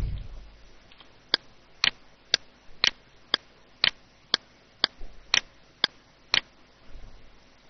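Computer mouse button clicking at an even pace, about two sharp clicks a second, as objects are picked one by one in CAD software.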